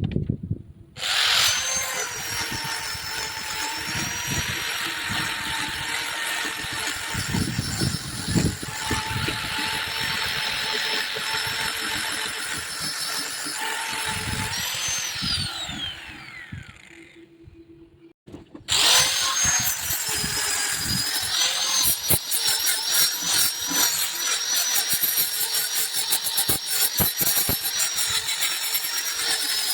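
A hand-held electric power tool runs with a steady high whine as it works a wooden table top. About fifteen seconds in it is switched off and winds down with a falling whine. After a second or two of quiet it starts again, now with a dense rough crackle over the whine.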